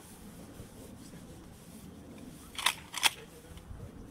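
Shotgun action being worked by hand: two sharp metallic clacks about a third of a second apart.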